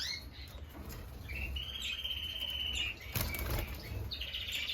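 Canaries singing long, even rolling trills, one lasting about a second and a half and another starting near the end, with a brief rustle just after three seconds in.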